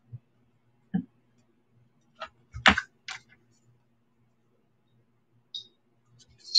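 A few scattered clicks and taps as packaged jewelry is handled and picked up, the loudest a short cluster about two and a half seconds in.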